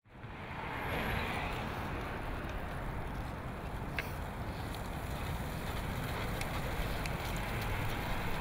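City street traffic: a steady wash of passing-car and road noise with a low rumble. There is a brief sharp click about halfway through.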